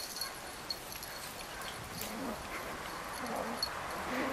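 Two Yorkshire terriers play-fighting on stone paving: light taps of their paws and claws on the slabs, with short play growls in the second half.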